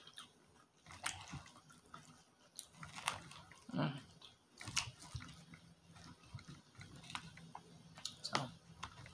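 A person chewing and biting into a mouthful of chicken mango salad, with scattered crisp crunches and clicks.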